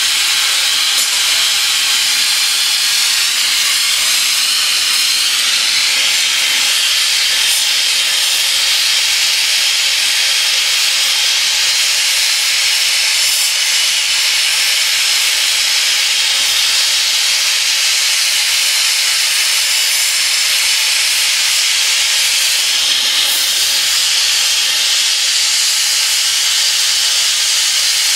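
Oxy-fuel torch flame hissing steadily while it heats a flat steel bar clamped in a vise.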